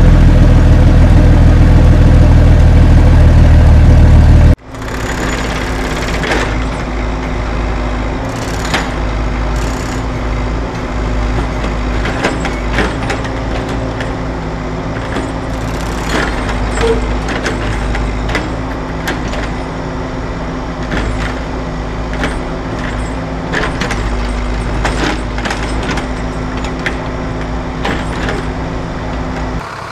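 Heavy engine running loud and steady, cut off abruptly about four and a half seconds in. It is followed by a quieter, steady engine hum with irregular sharp clicks and scrapes as the plastic toy excavator's bucket works the stones and gravel.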